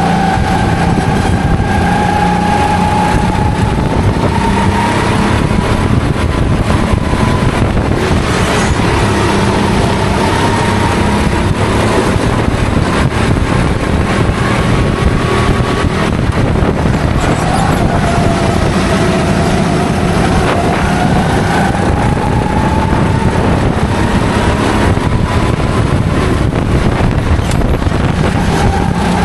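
Racing kart engine running hard. Its pitch climbs slowly for long stretches, drops sharply about seventeen seconds in as the kart slows, then climbs again.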